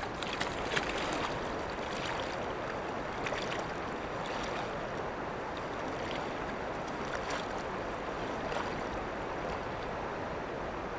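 Legs in waders pushing and splashing through thigh-deep river water, a scatter of short sloshes, over the steady rush of the flowing river.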